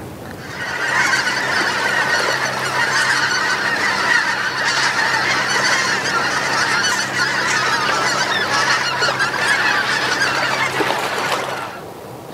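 A large flock of geese calling in flight, many honks overlapping in a continuous chorus. It swells in under a second in and fades out just before the end, over a faint steady low hum.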